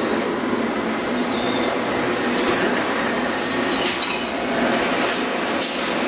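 Automated production-line machinery running: a steady, dense mechanical clatter from conveyors and gantry robots moving parts, with a faint high squeal over the first second or so.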